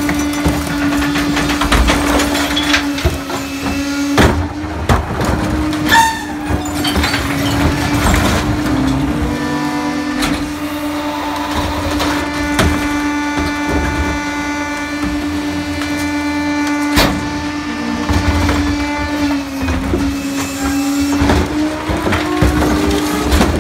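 Pak-Mor rear-loader garbage truck's engine and hydraulics running with a steady hum, with knocks and bangs as plastic recycling carts are emptied into the hopper. A higher hydraulic whine joins for about ten seconds in the middle as the cart tipper dumps a cart and the packer compacts the load.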